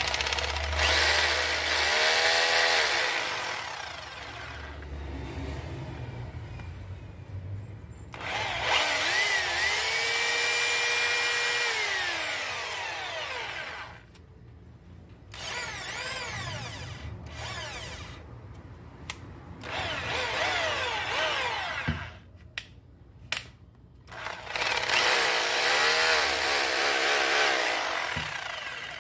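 DeWalt D25013 electric drill motor switched on and off in about five separate runs, each whining up to speed, running steadily for a second or several, then winding down.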